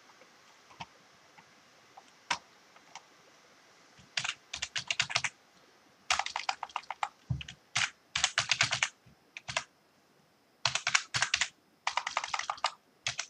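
Typing on a computer keyboard: a few scattered single clicks, then from about four seconds in quick runs of keystrokes in short bursts with brief pauses between them.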